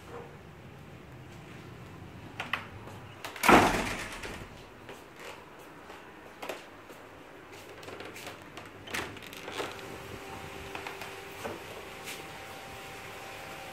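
A door being moved, with one loud short rush about three and a half seconds in, followed by scattered light knocks and clicks.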